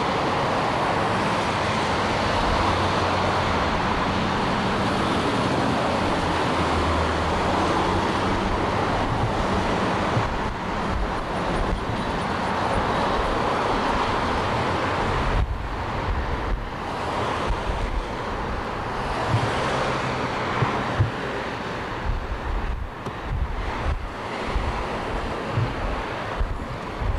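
Steady rumble of passing road traffic, with wind buffeting the microphone in low thumps, more unevenly in the second half.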